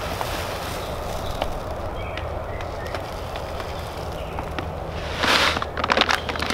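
Scotts grass seed pouring from its bag into the plastic hopper of a broadcast spreader, a steady hiss of falling seed. About five seconds in there is a louder rustle and crinkle of the bag as it is lifted away, then a few light clicks.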